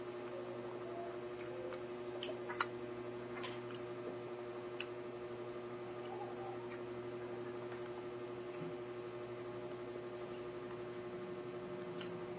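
Quiet eating by hand: a few faint clicks of chewing and of fingers working rice on a plate, the clearest about two and a half seconds in, over a steady electrical hum.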